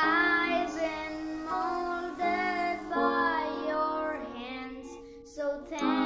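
A boy singing a slow song over a steady instrumental accompaniment of held chords, with a short pause in the voice about five seconds in.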